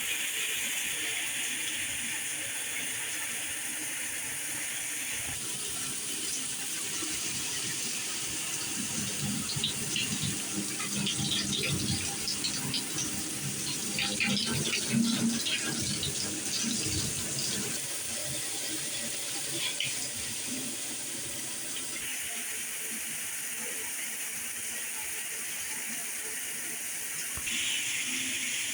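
Mainstays 6-setting plastic showerhead (1.8 GPM) spraying water in a steady hiss. The spray's sound changes abruptly three times, about five seconds in, past the middle and near the end, as the setting changes. For several seconds in the middle the water splashes unevenly and louder.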